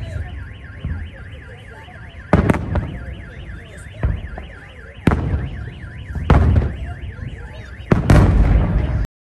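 Fireworks shells exploding overhead in a series of loud booms, one every second or so, over a continuous rapidly warbling electronic alarm. The sound cuts off abruptly near the end.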